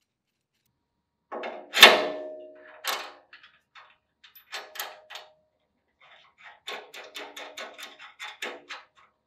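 Steel nuts, washers and threaded rod clinking and clanking as they are handled: one loud clank with a short ring about two seconds in, scattered clicks, then a run of quick light clicks near the end.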